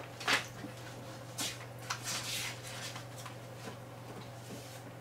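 Paper rustling as the pages of a booklet are leafed through: several short rustles and a longer one about two seconds in, over a steady low hum.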